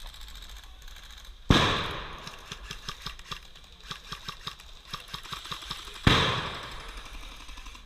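Two loud bangs about four and a half seconds apart, each ringing off for about a second, with a scatter of small sharp cracks between them, typical of airsoft pyrotechnic grenades and airsoft gunfire.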